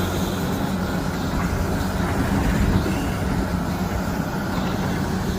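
Pressure washer running steadily: a motor hum under a hissing water spray, cutting off abruptly at the end.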